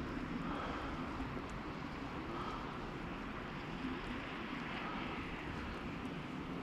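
Steady low outdoor rumble and hiss with no distinct events.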